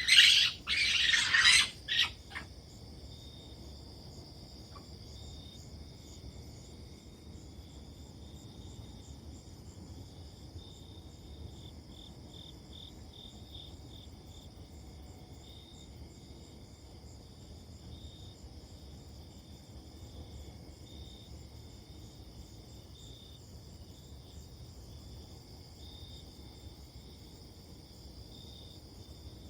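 A few loud, harsh animal calls in the first two seconds, then a steady chorus of insects with high, pulsing chirps.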